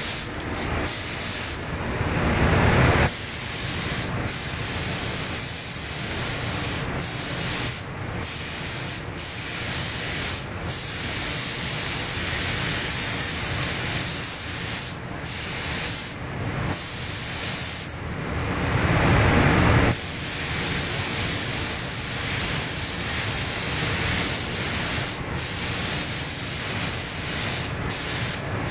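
Gravity-feed paint spray gun hissing with compressed air as it sprays motorcycle bodywork, the trigger let off for a moment many times. Two louder stretches of air rush, a second or two each, stand out near the start and about two thirds of the way through.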